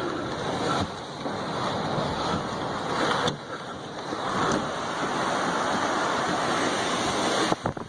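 Strong storm wind rushing and buffeting the microphone, mixed with waves on the lake, in a steady loud noise that dips briefly near the end.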